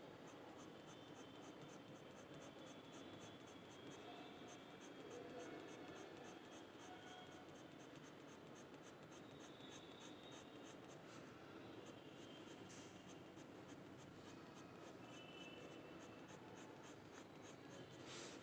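Faint scratching of a pen on paper as short strokes are drawn, filling the petals of a mehndi flower with lines.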